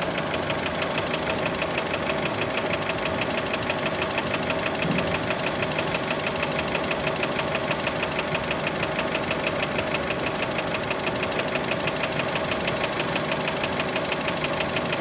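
Warmed-up Fiat Panda engine idling steadily with a fast, even knock that many take for piston skirt slap.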